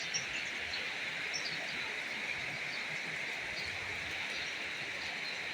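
Steady outdoor hiss with faint, scattered chirps.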